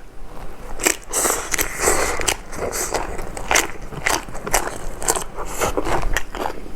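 A person biting and chewing a mouthful of spicy seafood papaya salad, with irregular crisp crunches several times a second.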